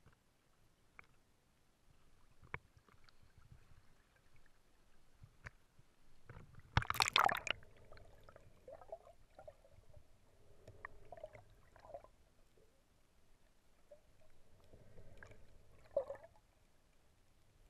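Faint water sloshing and small ticks against a camera housing at the surface, then a loud brief rush of water about seven seconds in as the camera goes under. After that, muffled underwater gurgling and knocks, with one sharper knock near the end.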